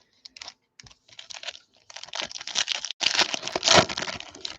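Trading card pack wrapper being torn open and crinkled by hand, a crackling rustle that builds from about a second in and is loudest near the end.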